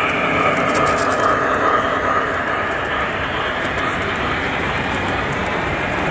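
Model train of coal hopper cars rolling past on the layout track: a steady rolling noise of many wheels running over the rails.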